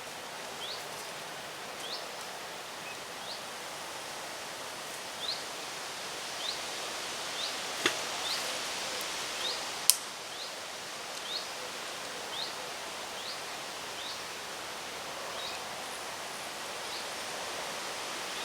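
Carp rod cast with a 2-ounce lead to feel the lakebed: a swish about eight seconds in and a sharp click about two seconds later, over steady outdoor background noise. A bird repeats a short rising chirp about once a second throughout.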